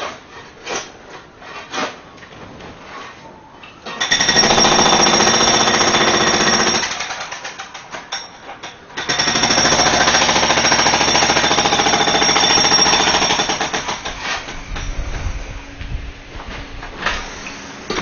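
Jackhammer breaking concrete close by in two long runs, about three seconds and then about five seconds, with a short break between. Scattered knocks come before and after the runs.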